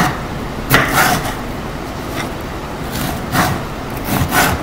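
Kitchen knife slicing through a sweet pepper onto a wooden cutting board: a few short, irregular cutting strokes and knife taps on the board.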